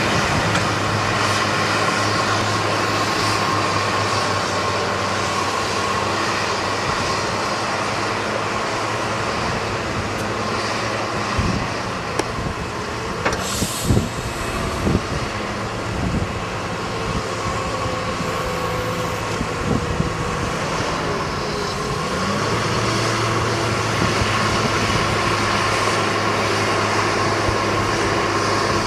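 Heavy farm tractor engines running steadily while handling chopped maize silage, with several knocks and clanks about halfway through.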